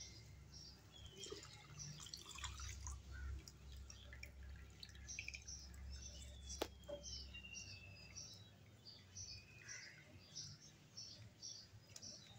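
Faint liquid sounds of orange juice being poured into sugar syrup in a pan and stirred with a nylon spatula, with a single sharp click about halfway through. A series of faint short high chirps repeats about twice a second throughout.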